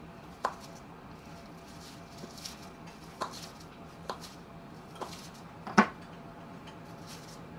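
Kitchen knife slicing through a chilled log of cookie dough, each cut ending in a short sharp knock as the blade meets the counter through the plastic wrap; about five knocks spaced a second or so apart, the loudest near the end.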